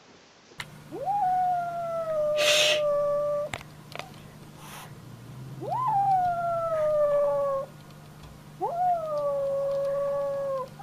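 Kitten yowling three times in long drawn-out calls, each jumping up in pitch and then holding and sagging slowly for two to three seconds: a defensive yowl from a kitten puffed up with an arched back. A short burst of noise cuts across the first call.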